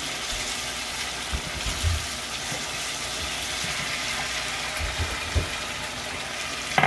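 A pot of tomato-paste sauce, thinned with a little water, sizzling with a steady watery hiss, with a few soft low knocks.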